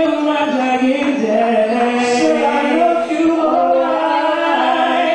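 A man and a woman singing together into microphones, holding long, drawn-out notes with no clear beat behind them.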